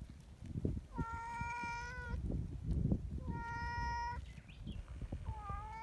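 A cat meowing three times, each meow a long, even call of about a second, over low rustling.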